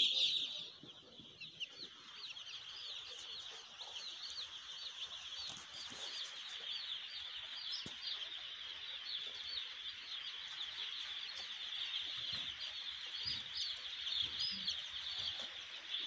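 A large flock of four-day-old broiler chicks peeping: many short, high cheeps overlapping in a continuous chorus. The peeping drops in level within the first second, then carries on steadily.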